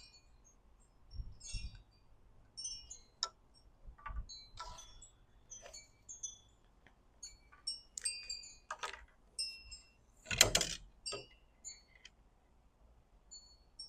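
Light metallic clicks and brief high clinks of a knife and metal sharpening-jig parts being handled and set in place, scattered irregularly, with a louder clack about ten and a half seconds in.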